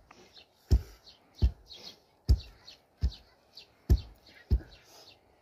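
Two long wooden pestles pounding rice in a mortar, struck in turn: a steady run of heavy thuds about every three-quarters of a second as the grain is crushed into flour.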